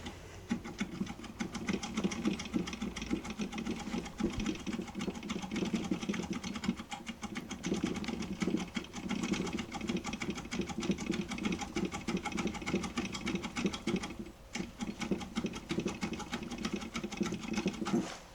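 Foil impression lockpick worked back and forth inside a Standers six-pin cylinder lock: fast, continuous metallic clicking, with a brief pause about four seconds before the end.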